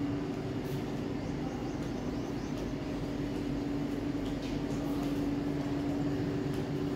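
Steady machine hum holding one constant tone, over an even background din.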